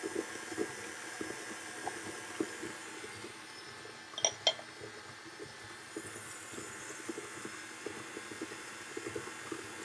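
Electric kitchen mixer running, its beater churning a wet shortcake batter of creamed butter, sugar, egg and milk with a faint hum and soft irregular ticking. Two brief higher-pitched sounds occur about four and a half seconds in.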